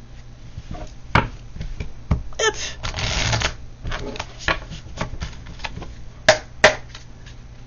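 Oracle cards being shuffled and handled: scattered sharp clicks and taps, with a brief dense riffling rustle about three seconds in.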